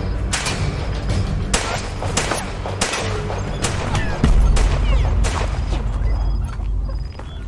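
Dramatic cinematic film score: a heavy low drone under a handful of sharp, loud percussive hits, with the low end swelling about two thirds of the way through.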